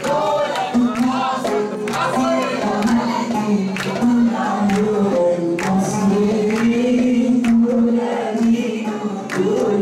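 A woman singing into a microphone, with a group of voices singing along and hands clapping in time to the song.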